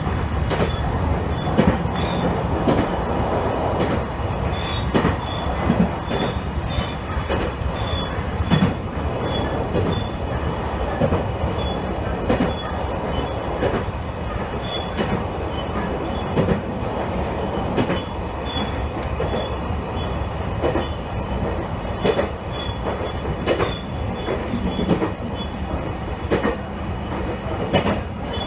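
Electric local train running along the track, heard from inside the car: a steady rumble with frequent irregular clicks and knocks from the wheels on the rails, and faint high squeals that come and go.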